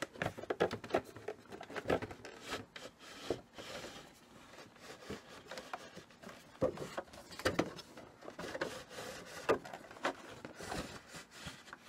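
Cardboard box and plastic packaging being handled as a model car is worked out of its box: irregular scraping, rubbing and tapping sounds.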